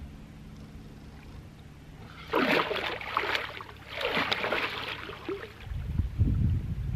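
Water splashing and sloshing as a person wades waist-deep into a cold lake and plunges under, in a few loud surges starting about two seconds in. A low rumble sets in near the end.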